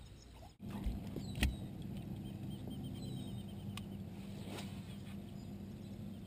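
A steady electric motor hum from a bow-mounted trolling motor on a bass boat. It starts abruptly after a brief dropout about half a second in. A few sharp clicks come from the rod and baitcasting reel during casting, and faint bird chirps sound in the background.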